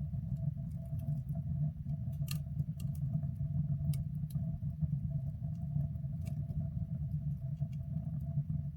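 Wood stove burning, with scattered sharp crackles over a steady low rumble.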